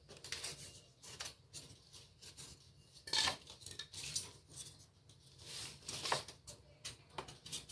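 Loose craft-foam pieces being handled and pressed into place in a foam maze: scattered light taps, scrapes and rustles, with two sharper knocks about three and six seconds in.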